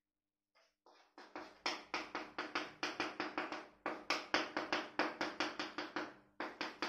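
Chalk scratching against a chalkboard in quick short strokes, about five a second, as a diagram is shaded with hatching lines.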